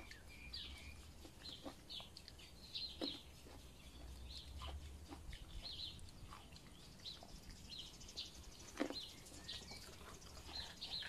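Faint birdsong: short high chirps repeating about once a second. A few soft clicks, around three and nine seconds in, come from red grapes being plucked off the bunch and chewed.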